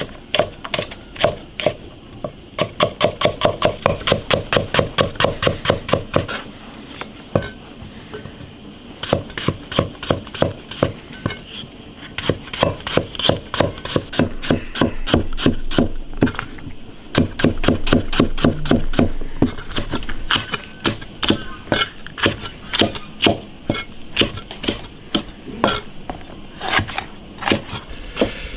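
Chinese cleaver chopping garlic, ginger and green peppers on a thick wooden stump chopping block: rapid, even knocks of the blade striking the wood, in long runs broken by short pauses.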